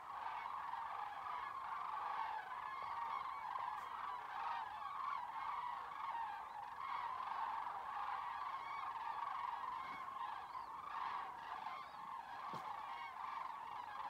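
A large flock of migrating birds flying in long V-shaped lines, calling continuously: a dense chorus of many overlapping calls that holds steady throughout.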